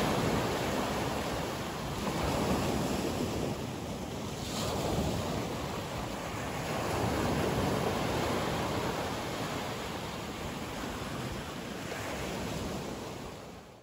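Small sea waves breaking and washing up a pebble beach, the surf swelling and easing every few seconds, fading out at the end.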